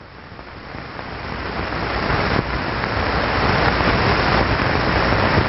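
Wind machine blowing a stream of air through a nozzle, a rushing hiss that swells louder over the first few seconds and then holds steady.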